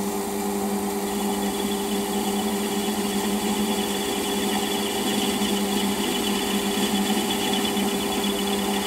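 Small metal lathe running with a steady motor hum while a turning tool is hand-fed along the outside diameter of a model steam engine cylinder, taking a light cut of a couple of thou. A higher whine from the cut joins in about a second in.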